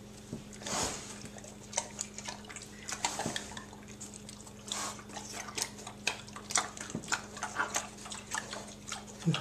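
Two pet pigs eating ice cream, with wet smacking and slurping: many quick, irregular mouth clicks.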